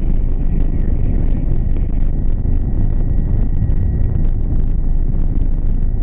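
Helicopter in flight heard from inside the cockpit: a loud, steady rotor and engine rumble with a thin, steady high whine over it.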